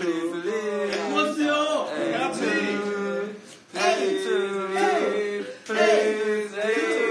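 Several young men singing together without accompaniment, a loud chant-like tune in phrases with short breaks about four and six seconds in.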